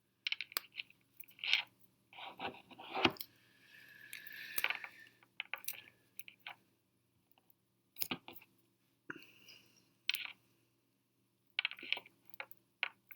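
Irregular small clicks, taps and scrapes from handling fingerboard parts, with a longer scraping stretch about four seconds in.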